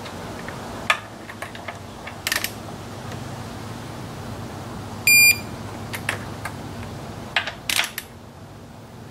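Digital torque wrench giving one short, high beep about five seconds in, the signal that the set torque has been reached on a throttle body nut. Short ratchet clicks and metal taps from the wrench come before and after the beep.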